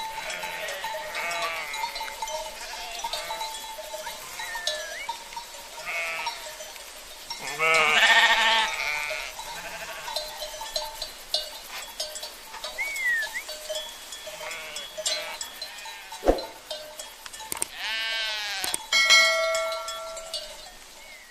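Sheep and lambs bleating over and over, several animals calling. The loudest bleats come about a third of the way in and again near the end.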